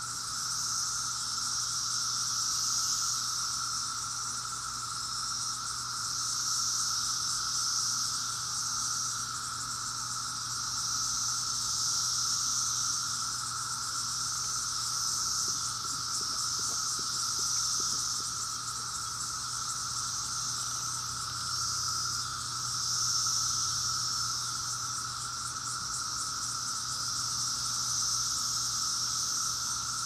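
Chorus of Brood X periodical cicadas: a steady lower drone under a higher-pitched buzzing that swells and fades in waves every few seconds.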